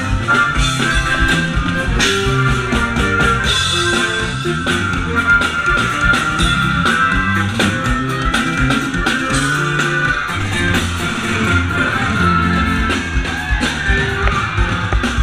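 Live band playing an instrumental passage on electric bass, electric guitar and drum kit, with a steady driving beat and no singing.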